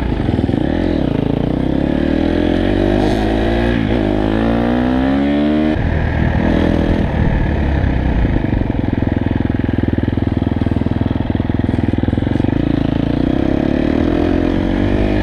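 KTM dirt bike engine heard from the rider's own seat, accelerating through the gears: the pitch climbs and drops at the shifts during the first six seconds, then the engine holds a steady cruise.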